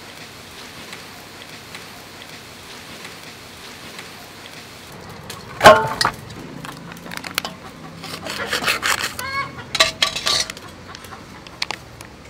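Dry instant noodle blocks crackling and snapping as they are crushed by hand in an aluminium bowl. About halfway in there is one sharp metal clank, the loudest sound. Chickens cluck several times in the second half.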